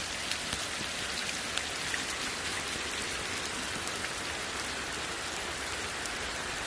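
Heavy rain falling steadily on wet ground and standing water, an even hiss of drops.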